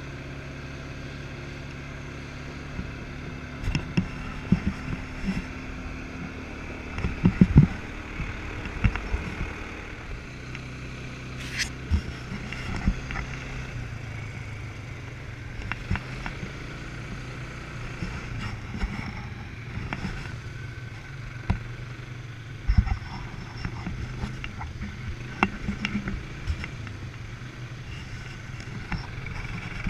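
ATV engine running steadily while riding a rough gravel dirt road, with scattered sharp thumps and rattles as the quad jolts over bumps, the loudest cluster about a third of the way in.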